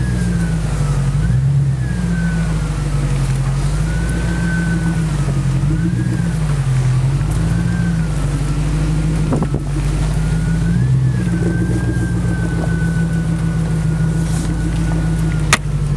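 Jeep Grand Cherokee's 4.7-litre V8 running under load, its revs rising and falling every second or two as the driver works the throttle off-road. There is a single knock about halfway through and a sharp click near the end.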